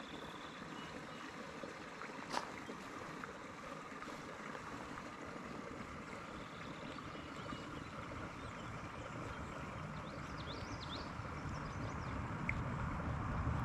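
Steady rush of flowing river water, with a single click a couple of seconds in and a few faint high chirps near the middle. A low rumble grows louder near the end.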